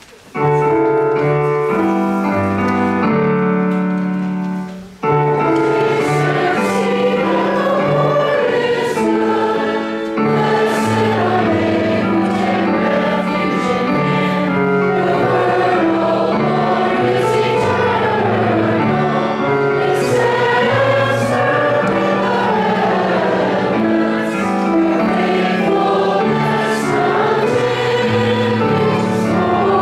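A church congregation sings a hymn of praise with instrumental accompaniment. It opens with about five seconds of held chords as an introduction, and the singing comes in after a brief break.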